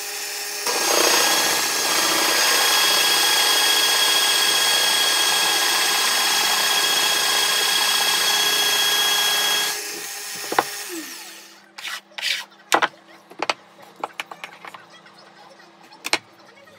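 Benchtop pillar drill boring into an oak blank with a Forstner bit: a steady cutting rasp over the motor's whine for about nine seconds. The cutting then stops and the drill runs on quietly, with a few knocks and clicks of the wood being handled.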